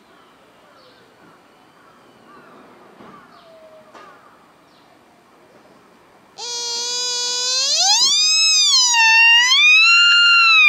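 Sika deer stag giving its rutting call about six seconds in: one loud, high, whistling moan that starts suddenly, rises steeply in pitch, then wavers up and down as it is held. Before it there is only faint background sound.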